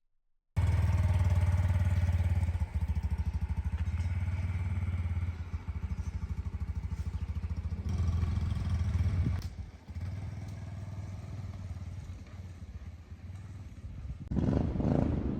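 Honda CT125 Hunter Cub's single-cylinder engine running with a rapid low pulsing beat, starting suddenly and staying loud for about nine seconds before dropping to a lower level. A short rush of noise swells near the end.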